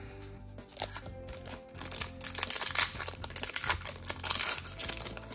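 Foil Pokémon booster pack wrapper crinkling and tearing as it is worked open by hand, starting about two seconds in, with background music underneath.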